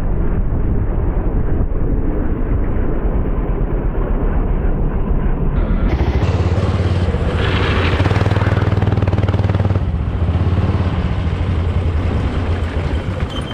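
IAME X30 125cc two-stroke kart engine running hard at racing speed, heard on board the kart, loud and continuous.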